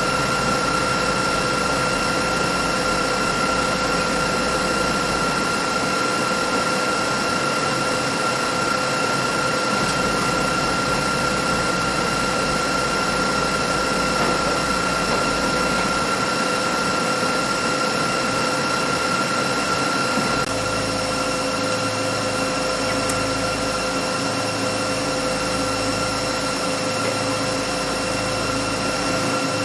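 Metal 3D printer running: a steady machine hum with a high whine. About twenty seconds in, the low hum changes to a pulsing one.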